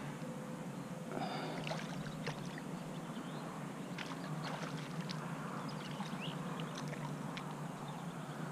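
Small splashes and sharp ticks from a hooked fish thrashing at the pond surface as it is worked toward the bank, over a steady outdoor rush.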